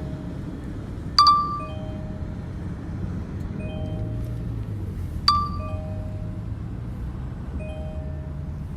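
Two ringing chime strikes about four seconds apart, over a soft pattern of short repeated tones and a steady low rumble.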